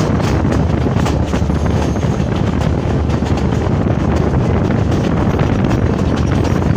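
Passenger train running along the track, heard from on board: a steady, loud rumble of the carriages with wind buffeting the microphone.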